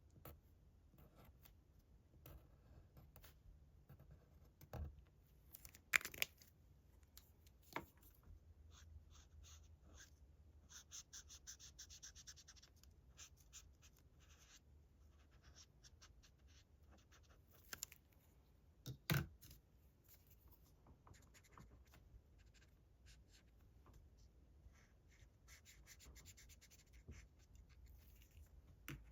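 Faint scratching strokes of a drawing tool on paper, with a busier run of quick strokes about eleven to thirteen seconds in. A few louder sharp taps or knocks come about five, six and nineteen seconds in.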